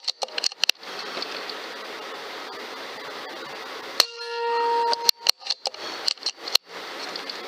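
AEA Challenger .22 PCP bullpup air rifle firing a subsonic cast slug about four seconds in: a sharp crack and then a ringing tone lasting about a second. A run of sharp metallic clicks comes just before the shot and again after it, as the action is cycled.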